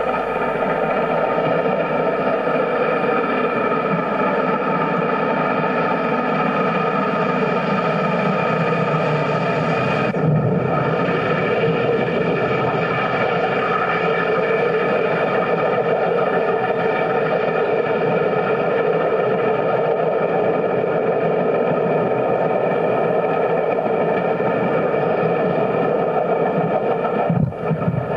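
Steam locomotive 2716 running with its train, a steady loud noise that briefly cuts out about ten seconds in and again near the end.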